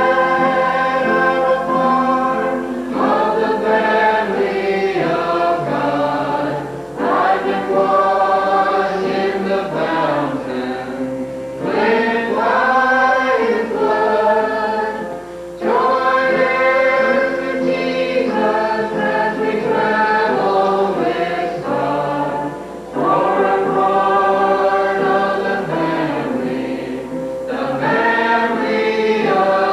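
Church choir singing a gospel song in phrases a few seconds long, with brief breaks between them.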